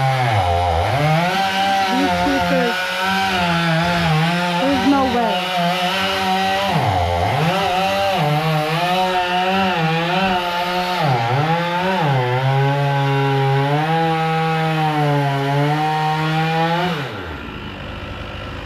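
Two-stroke chainsaw running at high revs while cutting wood, its engine note dropping sharply several times as the chain bogs down in the cut and then climbing back. The saw shuts off near the end.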